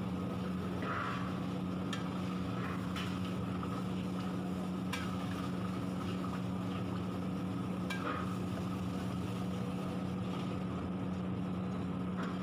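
A long metal spatula stirring thick chicken curry in a large kadhai, with a few short scrapes and clinks against the pan, over a steady low hum.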